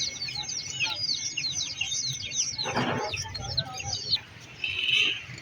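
A dense chorus of many small caged birds chirping, with quick overlapping falling calls. The chirping stops about four seconds in. A short, louder harsh burst comes about three seconds in.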